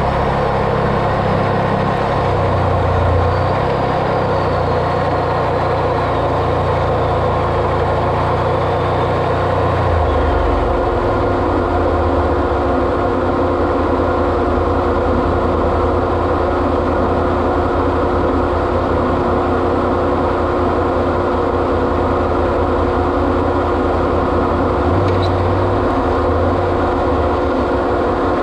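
Vehicle engine running steadily while driving, with a continuous hum; the low engine note shifts about ten seconds in.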